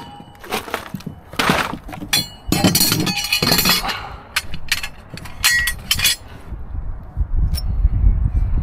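Light metallic clinking and clattering, with many separate knocks, as a box of small metal perfume-bottle tops is moved and slotted metal rails are handled and knocked together. A low rumble comes up near the end.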